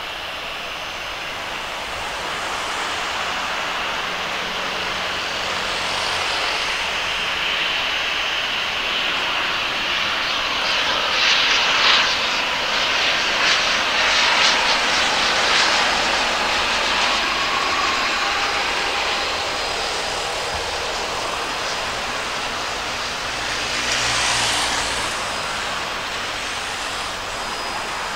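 Gulfstream G650 business jet's twin Rolls-Royce BR725 turbofans on landing approach: a whining jet noise that builds as the jet comes close, is loudest about halfway through, then eases off, with a short swell again near the end as it reaches the runway.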